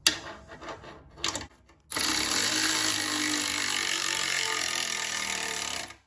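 Electric power ratchet running for about four seconds, driving in the bolt of an exhaust-tip clamp, after a few light knocks as the tip is handled and set straight in the first two seconds.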